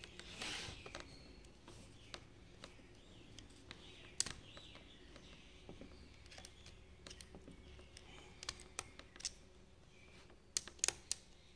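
Faint scattered clicks and light metallic taps from the governor and control-rack parts of a cutaway inline diesel fuel injection pump being worked by hand, with a quick run of sharper clicks near the end.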